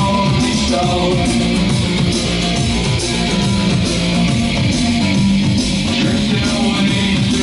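Guitar-led rock music with a steady beat and heavy bass, playing through open-baffle line-array loudspeakers and slot-loaded subwoofers under test.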